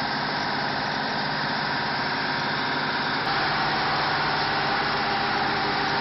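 KAMAZ dump truck's V8 diesel engine running steadily as the truck tries to work its way out of deep mud. It gets abruptly louder about halfway through.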